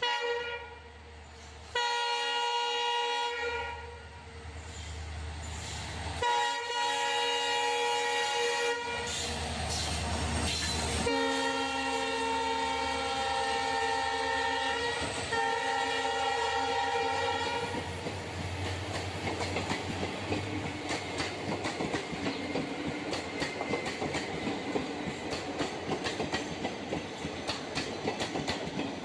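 Indian Railways train horn sounding a series of long blasts, about five over the first 18 seconds, with the locomotive's low hum between them. After that the train runs past, its wheels clattering rhythmically over the rail joints.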